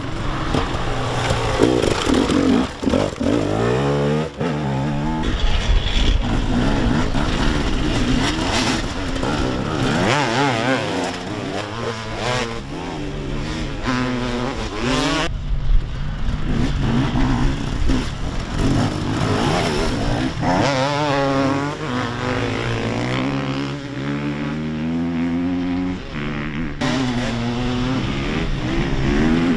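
Enduro motorcycle engines revving hard, rising in pitch through the gears and dropping back again and again. The sound changes abruptly about halfway through and again near the end.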